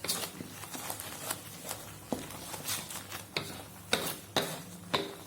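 A spatula stirring salted-egg-yolk sauce in a frying pan, knocking and scraping against the pan in irregular clicks, about two a second.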